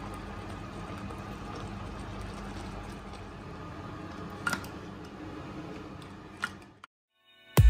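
Steady low kitchen room noise with a faint hum, and two light knocks about two seconds apart as a plastic spoon serves crab curry from a clay pot into a dish. Near the end the sound cuts to silence and electronic music with a beat starts.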